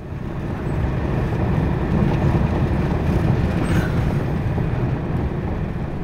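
Vehicle driving along a snow-covered road: steady road and engine rumble heard from inside the cab, swelling over the first second.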